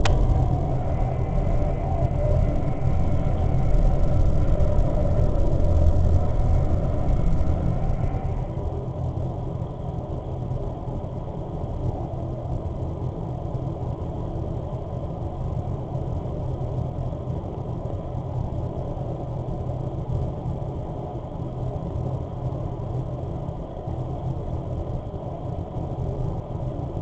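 Neural-network-generated dark ambient music (SampleRNN): a deep, dense drone with several steady held tones. About eight seconds in, the upper layer falls away, leaving it darker and a little quieter.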